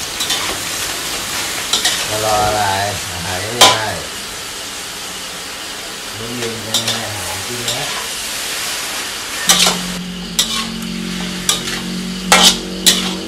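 Leafy greens sizzling as they are stir-fried in a metal wok, with the metal spatula scraping and clanking against the pan every few seconds. A steady low hum comes in near the end.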